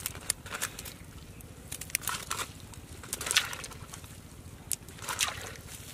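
Scattered irregular clicks and crackles of a wet cast net, holding prawns and small fish, being handled on mud.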